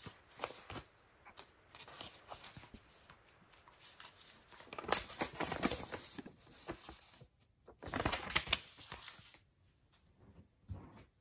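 Paper operator's manual being handled and opened, its pages rustling and crinkling, loudest in two bunches about halfway through and a little later, then dying away.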